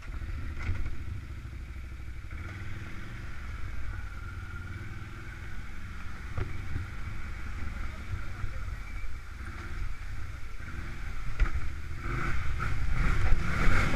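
Quad (ATV) engine running at low revs as the machine creeps over a rough, rocky trail, getting louder near the end.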